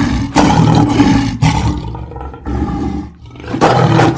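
Lion roaring: several deep, rough roars in a row, each about a second long with short gaps between them.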